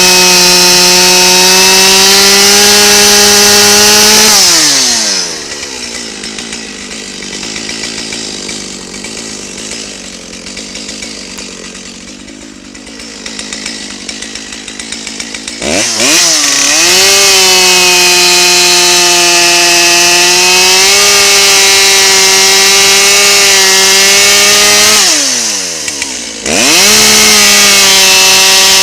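Two-stroke chainsaw cutting red oak at full throttle, its pitch holding steady under load. About four seconds in it falls back to idle for roughly ten seconds, then revs up again for a long cut, drops off briefly near the end and revs up once more.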